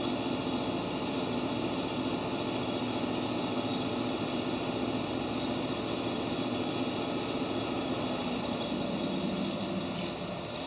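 Steady hum and whir of a stationary 189 series electric train's on-board auxiliary machinery, heard from the platform beside it. It eases off slightly about nine to ten seconds in.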